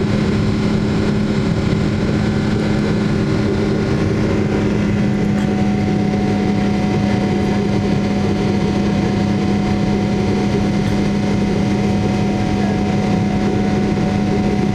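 Jet airliner cabin noise during the climb after takeoff: the engines' steady drone with a constant low hum, and a fainter steady higher tone joining about five seconds in.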